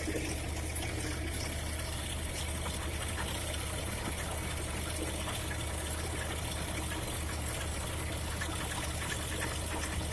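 Trencher machine cutting through hard soil: a steady low engine hum under a continuous noisy hiss of loosened earth, dotted with small crackles and ticks.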